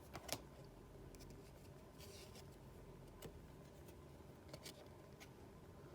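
Faint handling of trading cards: a few light clicks, the loudest just after the start, and a short soft rustle of a card sliding against another about two seconds in.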